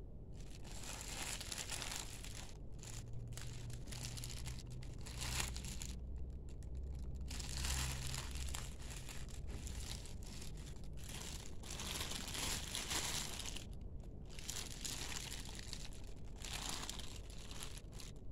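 Clear plastic wrapping crinkling in irregular bursts with short pauses as hands grip, squeeze and turn a plastic-wrapped package.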